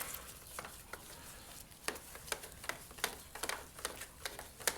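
Light, irregular clicks and taps of a Torx driver and small screws being worked out of a motorcycle's plastic body panel, a few per second, with a sharper click near the end.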